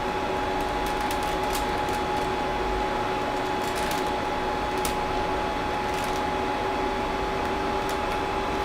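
Creality CR-10S Pro 3D printer's cooling fans whirring steadily, with a faint steady whine and a few faint ticks.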